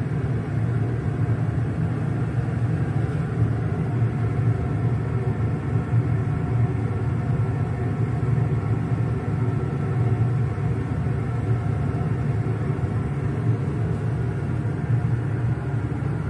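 Large steel pot of soup at a rolling boil on a lit gas burner, giving a steady rumble.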